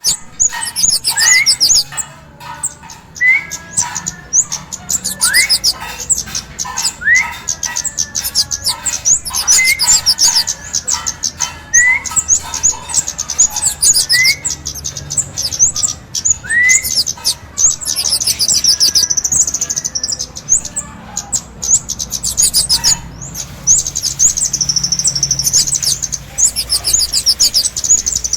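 Kemade bird calls used as a trapping lure: rapid, high chattering notes throughout, with a short rising whistle about every two seconds through the first two-thirds and longer warbling runs near the end.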